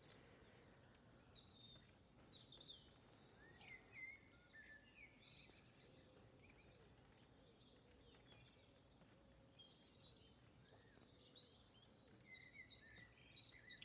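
Near silence: faint birds chirping in the background, broken by two sharp clicks about three and a half and ten and a half seconds in.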